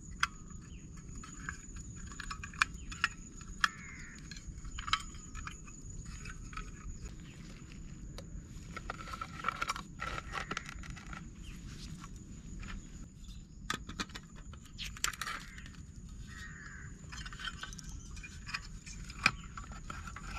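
Spoon clicking and scraping against an orange camping bowl while someone eats, in irregular sharp clicks and short scrapes. A steady high-pitched tone and a low rumble run underneath.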